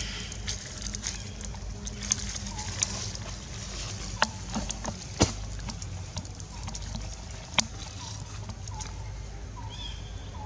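Outdoor ambience: a steady low hum with a few scattered sharp clicks, and short faint chirps about once a second in the second half.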